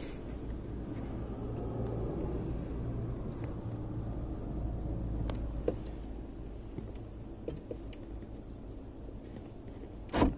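A steady low rumble with a few small clicks, then one sharp clunk about ten seconds in: the 2006 Pontiac Montana's power door locks actuating to unlock after not unlocking before.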